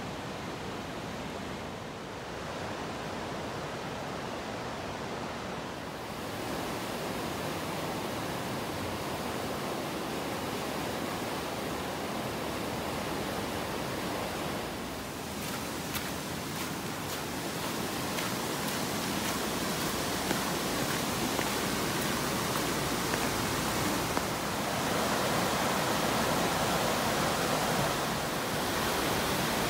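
Steady rush of river water spilling over a weir and through rapids, mixed with falling rain. The rush brightens about six seconds in and swells a little near the end.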